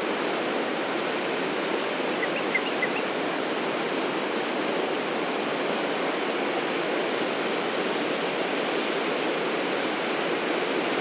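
Steady rush of ocean surf washing onto a sandy beach, with a few faint short high chirps about two to three seconds in.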